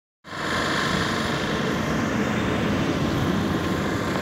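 Steady rushing noise of highway traffic and wind, with a faint low hum underneath; it cuts in just after the start.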